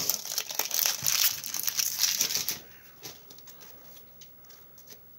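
Foil wrapper of a Pokémon Champion's Path booster pack crinkling as it is pulled open and the cards are slid out. It stops about halfway through, leaving only faint handling of the card stack.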